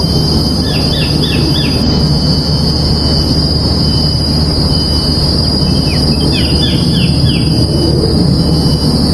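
Two quick runs of four or five short, sharp falling call notes from a small kingfisher, about half a second in and again near six seconds. Behind them run a steady high-pitched insect drone and a loud low rumble.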